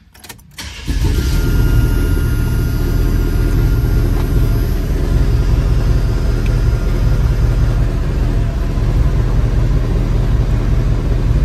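Chevrolet 400 small-block V8, fitted with a gear drive, being started: a brief crank in the first second, then it catches and runs at a steady idle.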